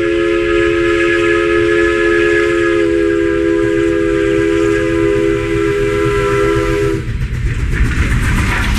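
Steam locomotive whistle, the SLRG 2-8-0 no. 18's chime sounding a chord of three notes in one long blast that cuts off about seven seconds in. Then the rumble and clatter of the approaching train rise.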